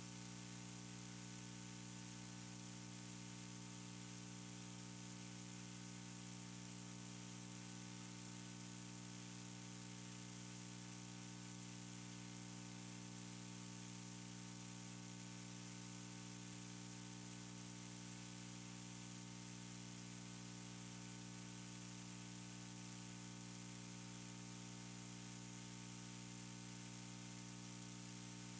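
Steady hiss and electrical hum from the recording setup: the white noise of the open sound system, unchanging throughout, with no other sound over it.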